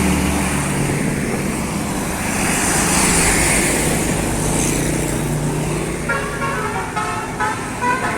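Bus engine and road noise, then about six seconds in a telolet bus horn, an Indonesian multi-tone air horn, plays a quick run of short notes stepping up and down in pitch.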